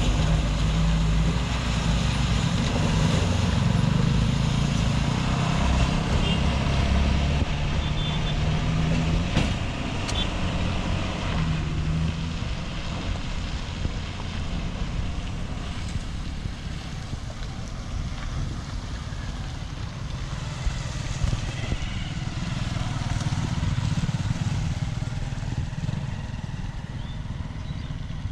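Motor vehicle engine running with road noise, the low engine hum loudest for the first ten seconds or so, then easing into a steadier, quieter rumble.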